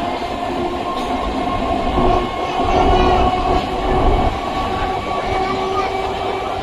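Electric suburban train running along the track: a steady rumble of wheels and rails with a few steady whining tones from the train's motors.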